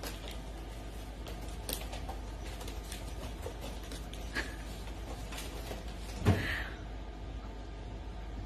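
Low steady hum with faint scattered clicks, and one dull knock about six seconds in.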